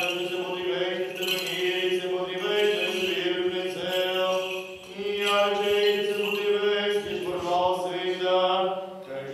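Orthodox liturgical chanting of the wedding (crowning) service: voices chanting a slow melody over a steady held low note.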